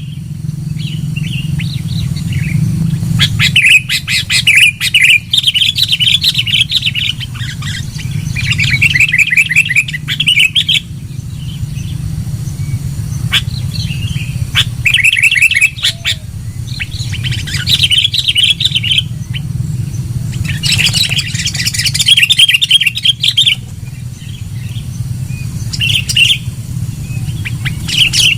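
Sooty-headed bulbul calling in repeated bursts of rapid chattering notes, each burst a second or two long with short pauses between, over a steady low hum.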